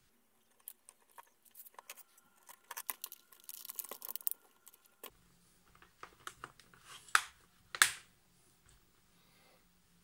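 Protective plastic film being peeled off a new laptop LCD panel: a run of crackles and a hissing tear through the first half. Then scattered plastic clicks and two sharper knocks as the laptop's lid is handled.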